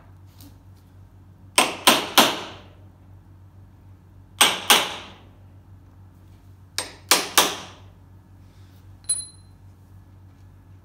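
Small hammer tapping a centre punch against a sheet-metal car body panel to mark pin holes: three bursts of two or three quick, ringing taps about two seconds apart. Near the end, a single light metallic ping.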